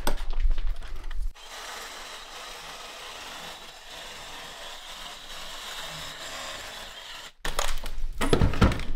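Ryobi cordless power saw running steadily with an even hiss as its blade cuts through the bottom of a densely packed bonsai root ball and akadama soil. The blade's vibration shakes the soil loose. Louder rustling and crunching of roots and soil handled by hand comes first, and again near the end.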